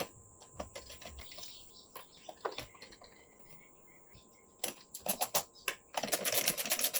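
Socket ratchet clicking as the 10mm nuts holding the fuel filter bracket are run on. Light scattered clicks come first, then a fast, even run of ratchet clicks near the end.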